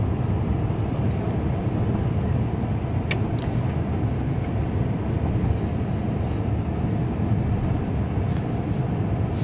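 Steady low rumble of a car driving on a snow-covered road, heard inside the cabin, with a couple of faint clicks about three seconds in.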